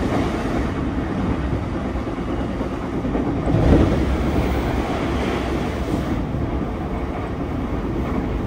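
JR East E233-0 series electric commuter train running at speed, heard from inside the passenger car as a steady rumble of wheels on rail. About three and a half seconds in there is a short, louder surge as something passes close outside the windows.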